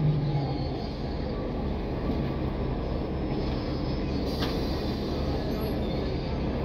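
Cabin noise of a running NABI 416 city bus: a steady low engine and road rumble, with a droning tone falling in pitch at the start. A single sharp click a little past four seconds in.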